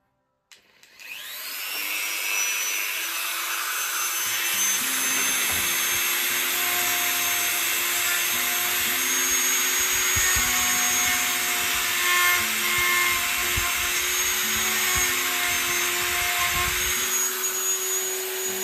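Dremel rotary tool with a small cut-off disc spinning up with a rising whine, then running at high speed while it grinds a slot into a plastic turnout drive block, the grinding rough and uneven as the disc bites. It winds down with a falling whine at the very end.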